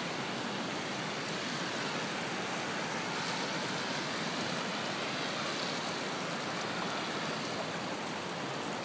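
Floodwater rushing steadily down a swollen creek, an even, unbroken noise of fast-moving water.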